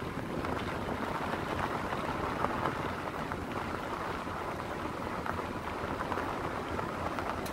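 Vehicle rolling along a dirt and gravel road: steady tyre and road noise with a fine crackle of gravel under the tyres.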